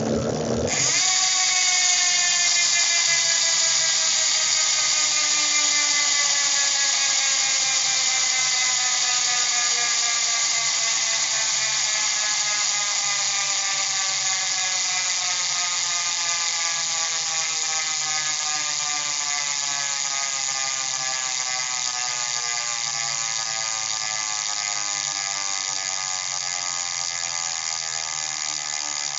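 Rear hub freewheel on a mountain bike, likely an e*thirteen LG1 Race, buzzing loudly as the spinning wheel coasts. The pawls click fast enough to sound like one continuous high buzz. The buzz starts about a second in, and its pitch slowly drops as the wheel winds down.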